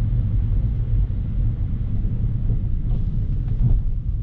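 BMW F30 335i driving slowly on a snowy road, heard from inside the cabin: a steady low rumble of engine and tyres.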